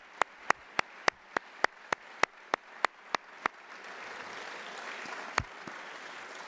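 Audience applauding, with one pair of hands clapping close to the microphone, about three sharp claps a second, for the first three and a half seconds. The crowd's applause then grows louder and carries on, starting to fade near the end.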